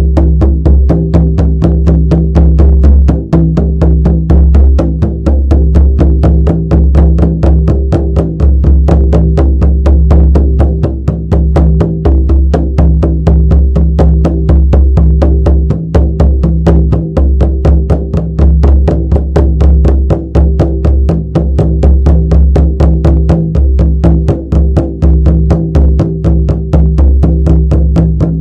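Shamanic frame drum beaten in a steady, even rhythm of about four strokes a second, each stroke booming deep and running into the next.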